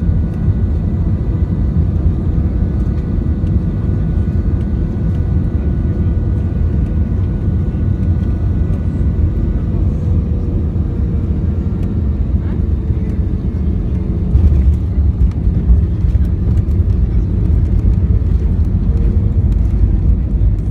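Airbus A320 cabin noise over the wing during landing: a steady rumble of airflow with a thin engine whine that fades out about halfway through as thrust comes back for touchdown. From about two-thirds through, the rumble grows louder as the jet decelerates on the runway with its spoilers raised.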